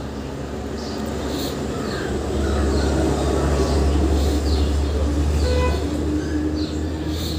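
Birds calling again and again, some with harsh caw-like calls, over a low rumble that swells through the middle and eases off near the end.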